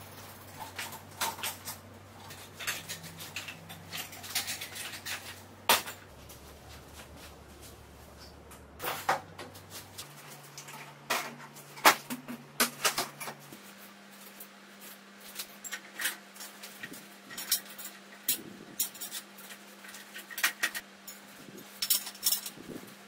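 Scattered knocks, clicks and metallic clatter from bicycles, wheels and solar panels being moved and set down on a tiled floor, over a faint low hum.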